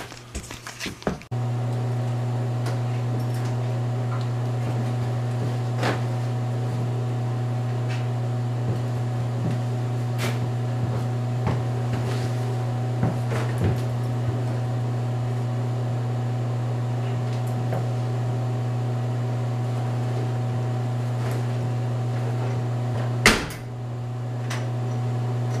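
Stacked washer-dryer running with a steady electric hum, over scattered knocks and clunks of laundry and closet handling. About 23 seconds in there is a click, and the hum drops, then builds back up.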